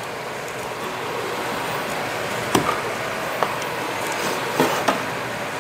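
Plastic canning funnel and sauce-filled glass jars knocking lightly together as the funnel is moved between jars: four short clicks in the second half, over a steady background hiss.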